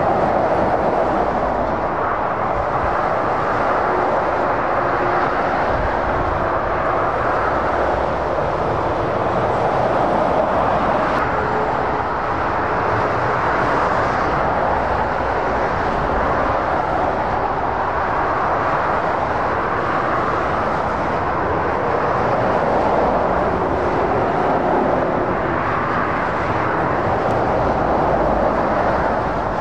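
Steady motorway traffic noise: tyre roar and engines of passing lorries and cars, swelling and fading every few seconds as vehicles go by.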